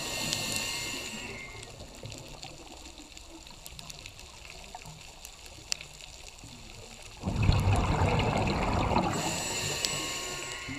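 Scuba diver breathing through a regulator underwater. A hissing inhale through the demand valve comes at the start, then a quiet pause, then a burst of exhaled bubbles rushing out about seven seconds in, followed by the next hissing inhale. Faint scattered clicks sound throughout.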